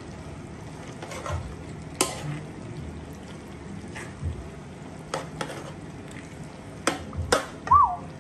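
Sliced pork ears and green bell pepper frying in a saucy pan with a steady sizzle, a metal spatula stirring and clicking against the pan several times. A short squeak near the end.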